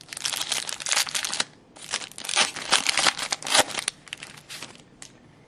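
Wrapper of a hockey card pack crinkling and tearing as it is handled and opened, in two stretches of dense crackle with a short break between.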